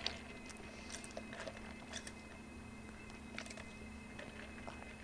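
Faint sipping through a drinking straw, with scattered small mouth clicks, over a steady low hum.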